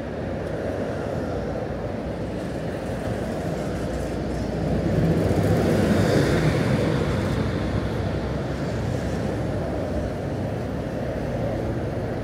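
City street traffic: a steady rumble of road vehicles, with one vehicle passing close and loudest about halfway through before fading back.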